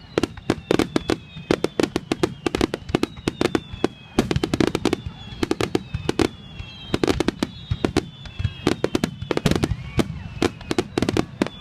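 Aerial fireworks display going off in a rapid barrage: many sharp bangs in quick, irregular succession, with thin high whistling tones gliding slowly downward among them.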